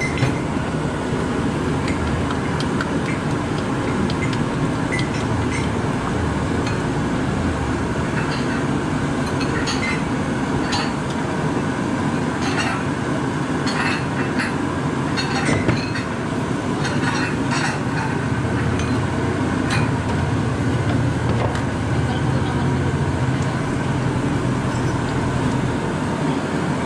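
A metal spoon clinking repeatedly against ceramic bowls as seasoning is spooned into a row of bowls, over a steady low rumble.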